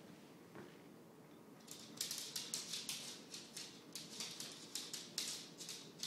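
A dog and a cat play-fighting on a hardwood floor: a quick run of short, scratchy scuffling sounds, about four or five a second, starting about two seconds in.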